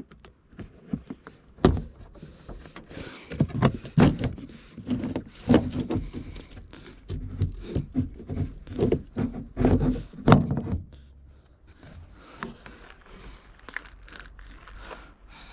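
Hands working on car interior trim and its plastic clips: a string of knocks, thunks and scraping of plastic panels, growing quieter after about eleven seconds.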